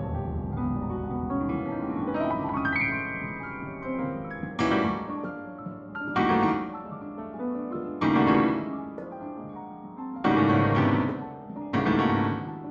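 Piano music: soft held notes for the first few seconds, then five loud struck chords, each ringing away, about every one and a half to two seconds.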